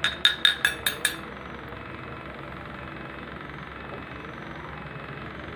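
A spoon stirring in a cup, clinking against its side about six times in quick, even succession in the first second, then only a low steady background.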